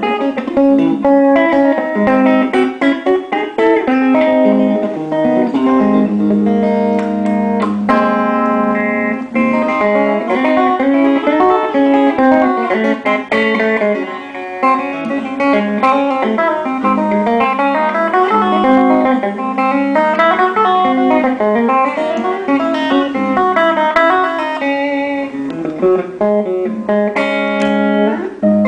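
Custom-built Ibanez PGM electric guitar being played: fast runs and arpeggios of single notes over held low notes.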